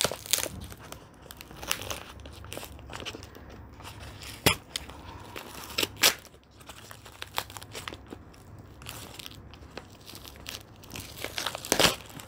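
Brown paper packaging crinkling and tearing as a parcel is unwrapped by hand. There are sharp crackles at about four and a half and six seconds in, and a louder burst of rustling just before the end as the box is pulled free.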